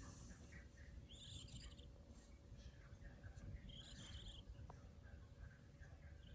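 A sleeping cat snoring faintly: a soft, high, whistling wheeze on each breath, coming back about every two and a half seconds.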